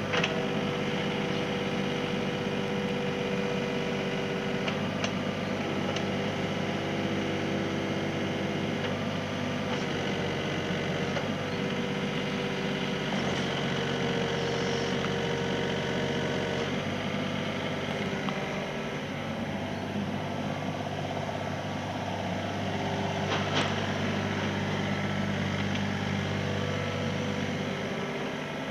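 Kobelco SK28SR-6 mini excavator's diesel engine running steadily, with a few faint clicks or knocks.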